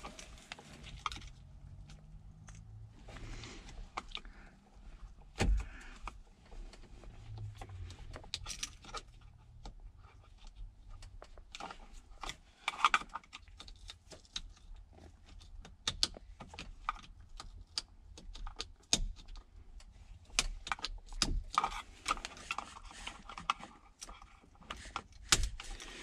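Hands working an ignition switch loose from a steering column: irregular plastic clicks and rattles, with the key ring hanging from the ignition jangling.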